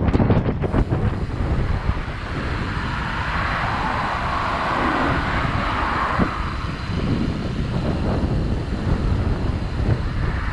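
Wind buffeting the microphone over steady rolling road noise from a moving cargo bike. A few clicks come near the start, and a broad rushing sound swells and fades in the middle.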